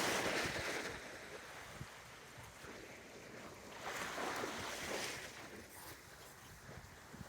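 Small waves breaking and washing up a flat, shallow beach: a swell of surf at the start and another about four seconds later.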